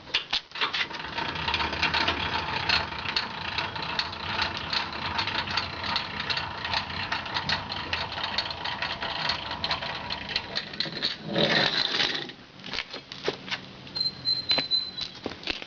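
Hand tools working on a car wheel: a fast, continuous run of metallic clicking and rattling, then a short noisy burst near the end followed by scattered clicks.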